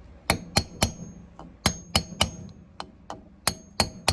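Light hammer taps seating a Yamaha Warrior ATV's camshaft in its cylinder head. About ten sharp taps come in quick groups of three, some leaving a brief high ring.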